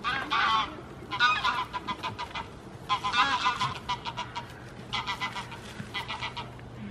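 A chicken calling loudly in four bouts of quick, repeated squawking notes, with short gaps between them.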